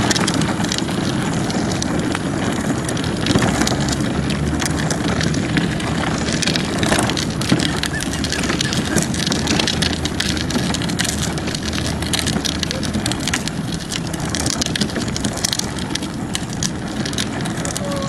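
Handling noise from a phone carried on a walk: a steady rush with frequent clicks and rubbing on the microphone.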